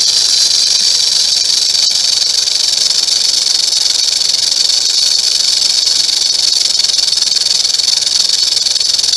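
Rattlesnake shaking its tail rattle in a continuous, steady high buzz, the defensive warning sound.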